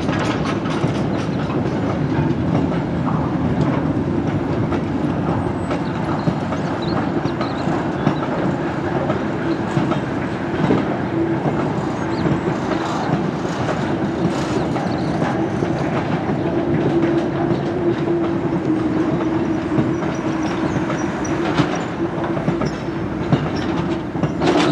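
A steam-hauled freight train reversing slowly: its wagons' wheels clicking and clattering over the rail joints, with a steady tone underneath that grows stronger about halfway through.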